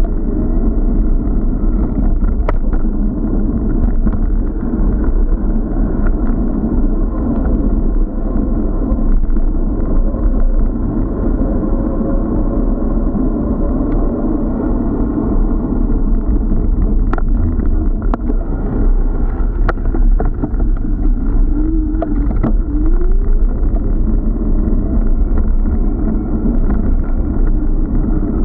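Steady, loud low rumble of wind and tyre noise on an action camera's microphone while cycling, with a few sharp clicks and knocks from bumps in the path.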